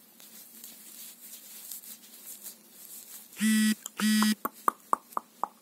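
Toy barber clipper buzzing in two short bursts of about half a second each, followed by a quick run of about six light plastic clicks.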